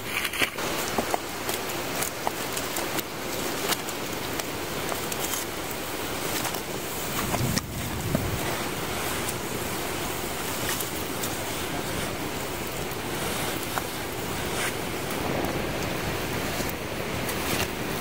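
Wood campfire burning in a steel fire ring: a steady rushing hiss with scattered crackles and pops, and a few dull knocks as split firewood is fed into it.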